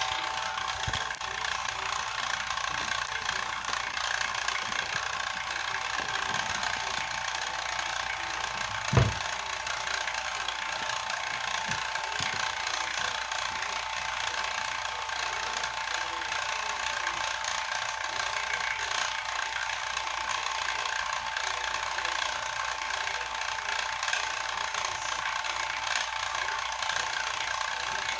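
Rotary vane vacuum pump running steadily as it evacuates a glass bottle lit by a flyback-driven plasma discharge, with a steady whine over the noise. A single sharp click about nine seconds in.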